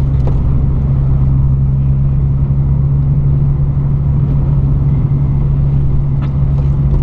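Mazda MX-5 (NB) four-cylinder engine and road noise heard from inside the cabin while driving on a wet road: a steady low drone.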